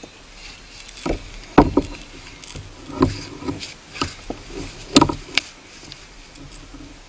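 A string of irregular knocks and thumps from a freshly caught fish being held and unhooked on a kayak, as the fish and the angler's hands and lure knock against the boat. The loudest come about one and a half seconds in and about five seconds in.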